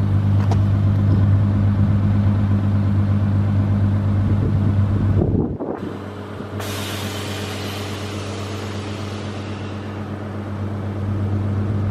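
Lexus IS350 running with a steady low hum. After a short break about halfway, a hiss of air venting starts and slowly fades: the Air Lift 3P air bags letting down to their lowest height.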